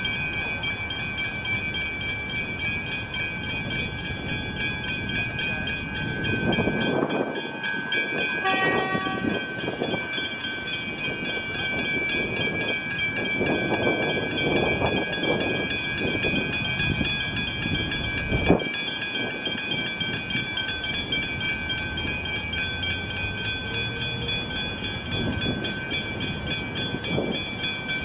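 Railway level crossing with its warning bells ringing steadily while a Melbourne suburban electric train passes with a rumble that swells and fades. A short train horn note sounds about nine seconds in, and there is a single sharp knock a little past halfway.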